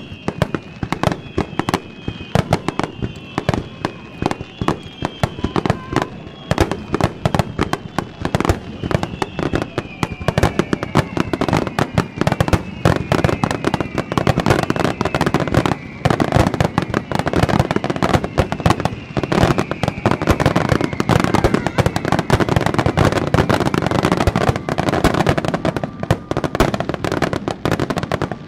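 Fireworks finale wide star mine: a rapid, continuous barrage of aerial shell bursts and crackling that grows denser about halfway through. High whistling tones glide down in pitch through the first half.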